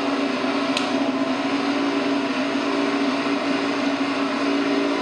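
Motorcycle engine running steadily at one unchanging pitch, played back as a recorded sound effect.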